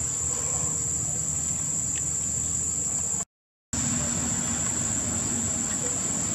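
Steady, high-pitched drone of insects, unbroken apart from a half-second cut to silence a little over three seconds in, over a low background rumble.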